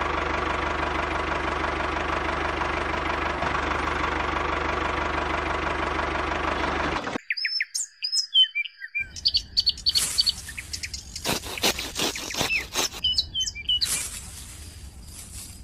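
Miniature DIY tractor's small motor and gears running with a steady hum, cutting off abruptly about seven seconds in. Then birds chirping, with quick bursts of rustling and snipping as grass seedlings are cut with a tiny hand sickle.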